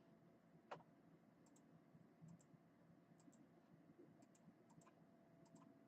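Near silence with faint, scattered clicks of a computer mouse and keyboard, one slightly louder click under a second in.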